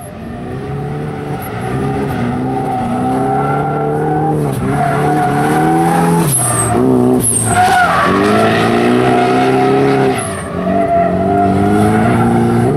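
Drift car's engine revving up and down again and again, its pitch climbing and falling with each throttle stab, over the hiss of tyres sliding sideways. The engine note dips briefly a few times.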